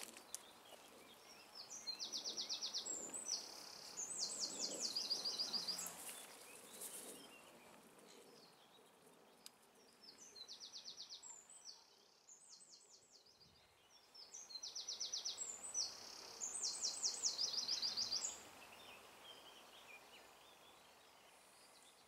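A songbird singing three times, each song a run of high, rapidly repeated notes and fast trills, over faint steady outdoor background noise.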